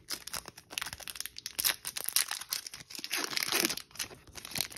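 Foil wrapper of a Panini Prizm Monopoly basketball card pack crinkling and rustling as it is pulled out of the blaster box and handled in the fingers: a dense run of sharp, irregular crackles.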